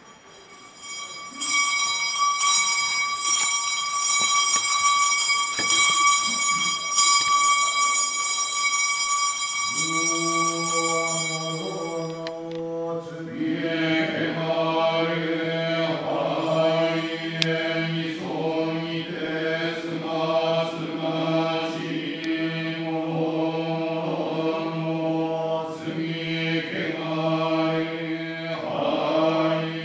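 A long, steady high tone lasts about ten seconds, then a priest's voice takes up a ritual chant, held on one low pitch with the syllables rising and falling above it.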